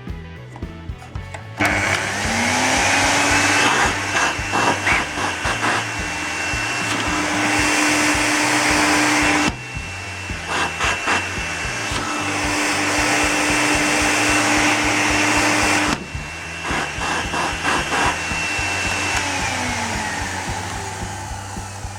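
Clatronic vacuum cleaner switched on about two seconds in, its motor spinning up to a steady whining run. The sound changes abruptly twice, then the motor is switched off and winds down, the whine falling, near the end. Background music plays under it.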